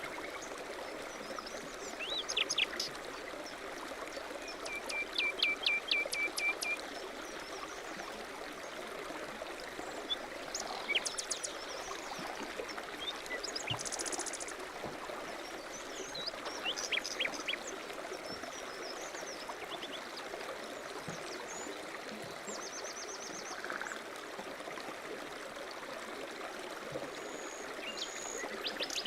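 A stream running steadily, with several small birds chirping and calling over it: a quick run of repeated notes about five seconds in and a high trill near the middle.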